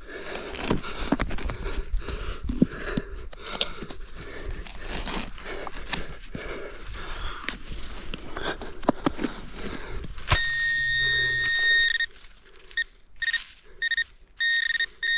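Digging and scraping in soil for about ten seconds. Then a handheld metal-detecting pinpointer gives a steady high beep for nearly two seconds, followed by several short broken beeps, signalling more metal still in the hole.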